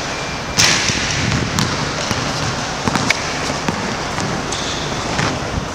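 Karate sparring strikes: a few sharp slaps and thuds of kicks and punches landing on gloves and padded gi, echoing in a large hall. The loudest hit comes about half a second in, with smaller ones scattered after, over a steady background hiss.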